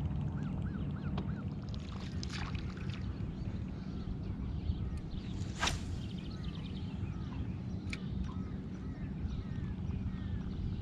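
Boat motor running steadily with a low hum, with birds chirping faintly.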